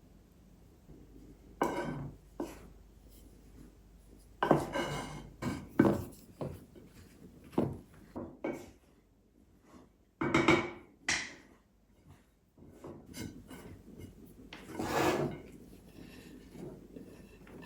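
Irregular scraping, rubbing and light knocking of kitchen work, as utensils and dishes are handled on a wooden surface, in several separate spells with short quiet gaps between.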